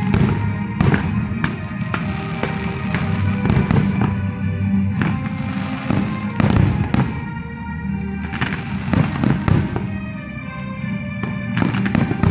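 Professional fireworks display: aerial shells bursting and ground-fired comets launching, giving a dozen or more sharp bangs at irregular intervals, over the show's music.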